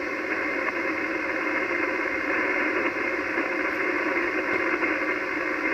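Steady static hiss from an Icom HF transceiver's speaker on the 80-metre ham band, thin and telephone-like, cut off below and above the voice range by the receiver's sideband filter.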